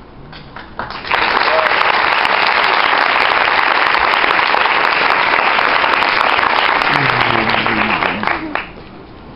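Audience applauding, starting suddenly about a second in and dying away near the end, with a few voices heard under it toward the end.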